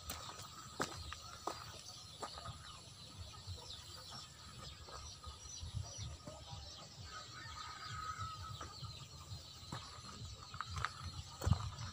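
Outdoor rural ambience with faint distant chickens and a steady high hiss, with a brief call about seven seconds in. Scattered clicks and rubs come from the phone being handled.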